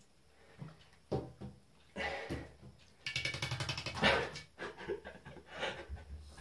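A wet cat in an enamel bathtub: a few soft knocks, then about a second of fast rattling pulses starting about three seconds in, followed by smaller scattered sounds.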